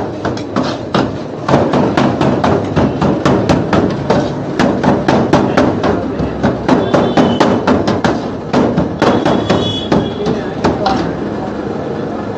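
Knife or cleaver chopping rapidly on a cutting board, about three or four strokes a second, which stops about eleven seconds in.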